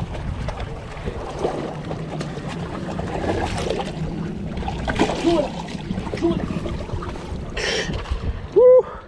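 Sea water washing and lapping against jetty rocks, with wind on the microphone. A short, loud, high-pitched squeak sounds near the end.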